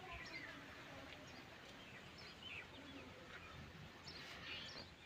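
Faint background noise with small birds chirping here and there.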